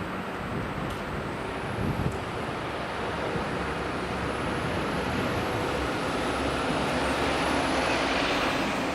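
Amtrak AEM7AC electric locomotive and its Amfleet passenger cars rolling along the track, a steady rumble and hiss that slowly grows louder, with a thin high-pitched whine over it most of the time.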